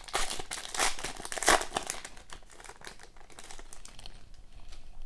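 Foil wrapper of a 2021-22 Upper Deck Ice hockey card pack crinkling and tearing as it is opened by hand. The wrapper is loudest in the first two seconds, then fades to softer rustling and light clicks.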